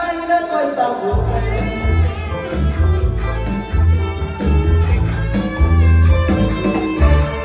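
Karaoke backing music with guitar over a heavy, beating bass line, played loud through a pair of Wonderfell W-12 speakers and a subwoofer. The bass drops out for about the first second, then comes back.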